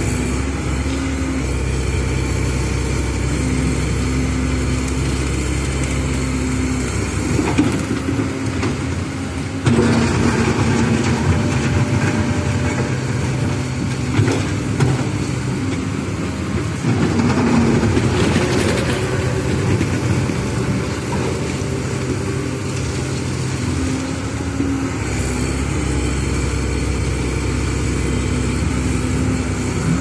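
Komatsu PC130 hydraulic excavator's diesel engine running steadily while the boom and bucket work a gravel pile, growing louder and rougher for several seconds from about a third of the way in as the machine works harder.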